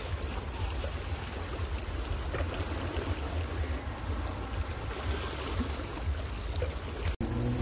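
Small sea waves lapping and sloshing, over a low, unsteady rumble and a few faint clicks. The sound cuts out briefly near the end.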